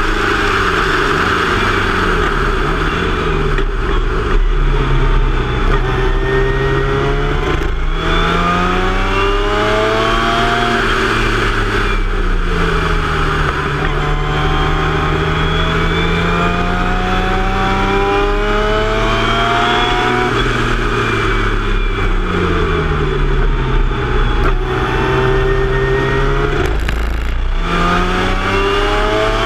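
Formula Mazda race car's rotary engine at racing speed from the cockpit. The pitch climbs and steps down with each upshift, twice falls away as the car slows for a corner and then climbs again, over a steady wind rush.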